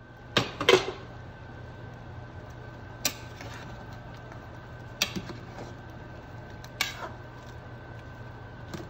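A metal spoon clinking against the sides of a metal pressure cooker as chicken and chana dal are stirred: a close pair of knocks near the start, then single knocks about every two seconds. Under it runs a steady low hum with a faint high whine.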